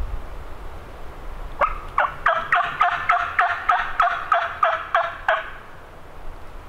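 Turkey call sounding a series of about a dozen hen yelps, roughly three a second. Each yelp is sharp and falls in pitch. The series starts about a second and a half in and stops abruptly after about four seconds: a hunter calling to draw a response from a gobbler.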